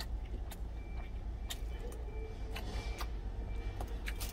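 Eating sounds: a metal spoon clicking against an insulated food jar and chewing, over a steady low rumble.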